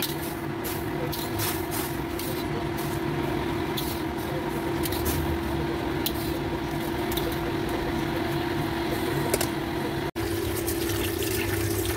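Steady kitchen hum with a held low tone and a hiss, with faint light clicks and water sounds as boiled shimeji mushrooms are scooped out of hot water in a wok with a metal skimmer. The sound drops out for an instant about ten seconds in.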